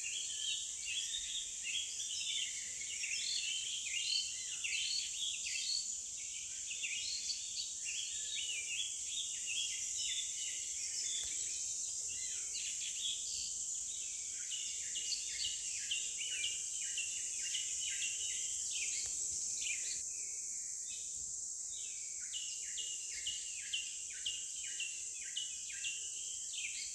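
Forest ambience: a steady high insect drone with many birds chirping in short, quick notes over it. Near the end the calls fall into a run of evenly repeated chirps.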